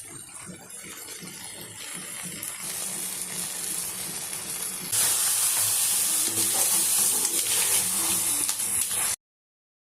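Food frying in a hot pan, sizzling and slowly growing louder, then jumping to a much louder sizzle about five seconds in. It cuts off abruptly near the end.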